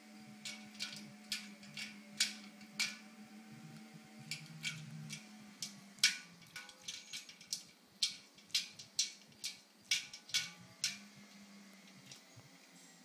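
Ice cubes clinking and knocking against a stainless steel water bowl as a dog paws at them: a string of sharp, irregular clicks, the loudest about six seconds in.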